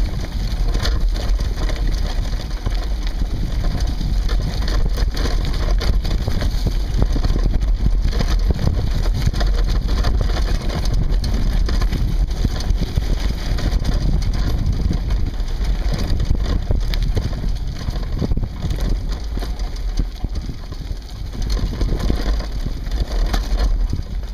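Sport-On Explorer II off-road handcycle rolling along a dirt and gravel track: the tyres crunch over the loose ground and the bike rattles, over a steady low rumble.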